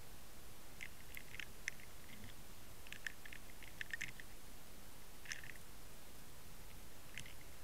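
Faint clicking and crackling picked up underwater through a camera housing, in a few short clusters over a steady hiss.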